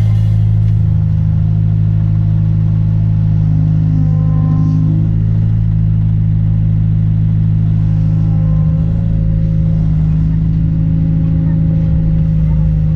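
Excavator's diesel engine running with a steady, deep drone.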